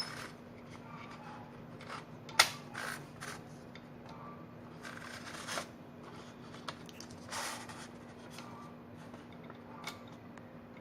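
An Olivetti Lettera 35i portable typewriter being handled: scattered mechanical clicks, one sharp click about two seconds in, and a couple of brief rubbing sounds, over a faint steady hum.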